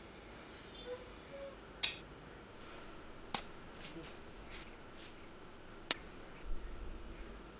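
A few sharp metal clicks of a bolt and nuts being set against a steel angle. About six seconds in, a low hum and short crackles start as an arc welder tacks a nut onto the steel.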